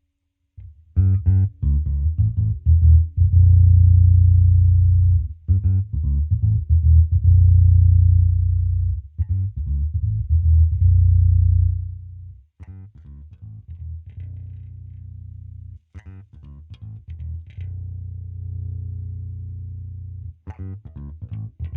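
Electric bass guitar played through a newly built onboard three-band EQ preamp, its humbucker pickups rewired so that both coils work: plucked notes and short runs between long, low held notes. It plays loud for the first half and markedly quieter from about halfway through.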